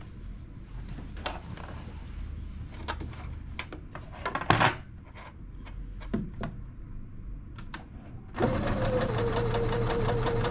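Scattered small clicks and knocks, the loudest about four and a half seconds in. Then, about eight seconds in, an electric sewing machine starts and runs steadily at speed with a fast even stitching rhythm, sewing a long quilt seam.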